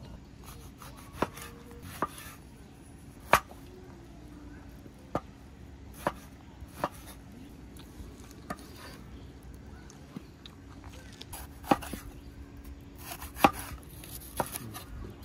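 Large cleaver-style kitchen knife chopping tomatoes and green pepper on a wooden cutting board: irregular sharp knocks of the blade striking the board, roughly one a second, some much louder than others.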